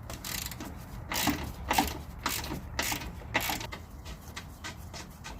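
Hand ratchet with a 14 mm socket clicking in short strokes, about two a second, as it loosens the front sway bar bracket bolt. The clicking grows lighter in the second half.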